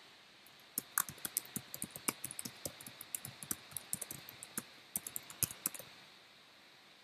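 Typing on a computer keyboard: a quick, irregular run of key clicks that stops about six seconds in.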